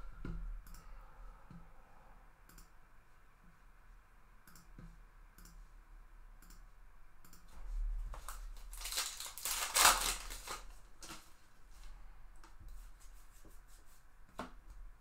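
The wrapper of a 2022 Bowman Heritage Baseball card pack being torn open and crinkled: a loud rustling burst about nine to ten seconds in. Faint taps of card handling come before and after it.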